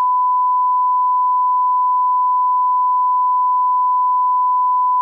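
A 1 kHz line-up tone, the steady pure test tone that accompanies colour bars at the head of a tape and is used to set audio levels. It holds one unchanging pitch at a constant loud level throughout.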